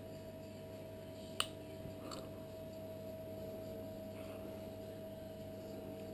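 Faint steady hum of dental equipment, with one sharp click about a second and a half in and a softer one about half a second later, as a wisdom tooth is worked out with extraction forceps.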